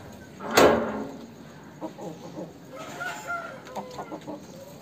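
Roosters calling: a loud, short call about half a second in, followed a couple of seconds later by a string of softer clucks.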